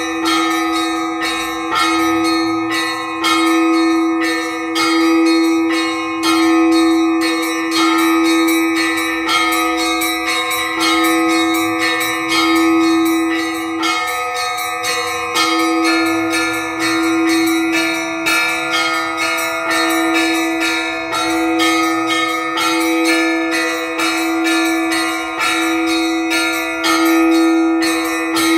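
Orthodox church bells rung by a bell ringer in a simple cyclic pattern: rapid strikes on the small high bells over a lower bell whose tone rings on continuously and swells again about every two seconds.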